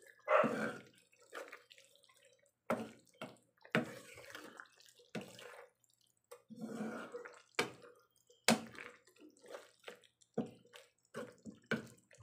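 Wooden spatula stirring litob shellfish in a bubbling oyster-sauce gravy in a nonstick pan: irregular clacks and scrapes against the pan, with wet sloshing and bubbling of the sauce.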